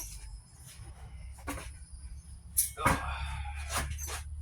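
Scattered knocks and clicks from handling the heavy, newly assembled table with metal legs, about seven in all, the loudest about three seconds in, over a low steady hum.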